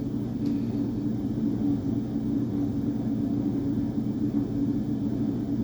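Steady low mechanical hum with a rumbling undertone and no change in pitch.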